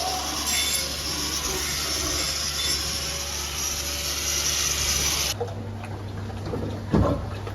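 Steady rushing hiss of water spraying, cutting off suddenly about five seconds in, followed by a low hum and a single knock near the end.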